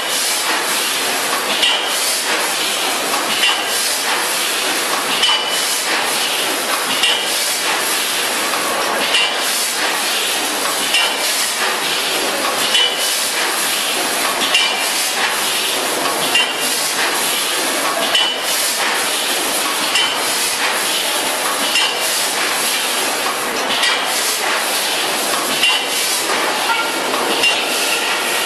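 Zengran Pack VFS5000FS twin-tube vertical form-fill-seal packaging machine running, a steady mechanical hiss under a rapid clatter of clicks and clinks, with a clink that repeats about every two seconds as it cycles.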